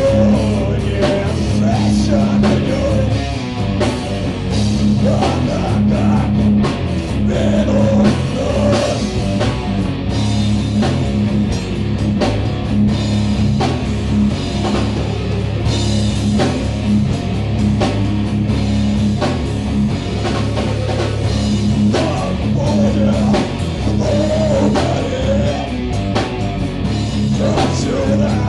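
Heavy metal band playing live: distorted electric guitars and a drum kit, with a vocalist singing into a microphone. Loud and dense, without a break.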